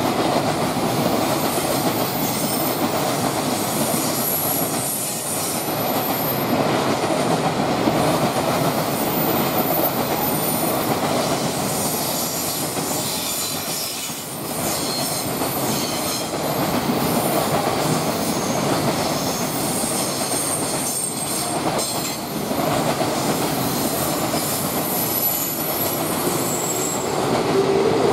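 A long container freight train's flatcars rolling past: steady wheel-on-rail noise with clicks as the wheels cross rail joints, and faint high-pitched wheel squeal now and then.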